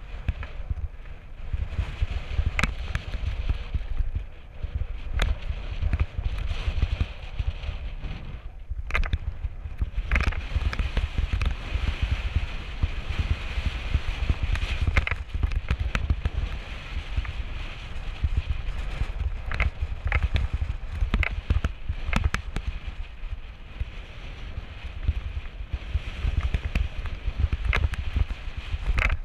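Mountain bike descending rocky dirt singletrack: wind rumbling on the microphone, with the tyres rolling over gravel and many sharp clicks and rattles as the bike bounces over rocks.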